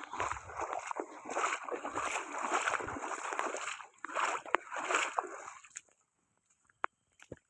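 Water splashing and sloshing, such as rainwater running through a field, as an uneven rush that dies away about six seconds in. A few faint sharp clicks follow.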